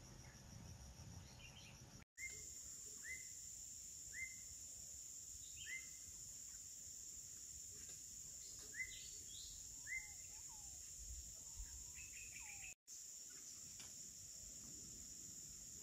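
Tropical forest ambience: a steady high drone of insects, with a bird giving short chirps about once a second and a few lower gliding calls near the end. The sound drops out to silence briefly twice.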